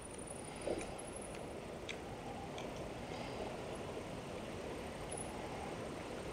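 A few faint clicks of a camera's control dial being turned to set the exposure time, with a soft knock about a second in, over steady outdoor background noise.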